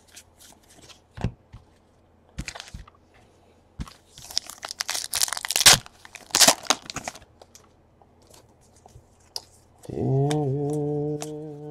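Foil wrapper of a 2017 Donruss baseball card pack being torn open and crinkled: a loud crackly tearing lasting about three seconds, after light clicks of cards being handled. Near the end a man's voice holds a long, steady hum.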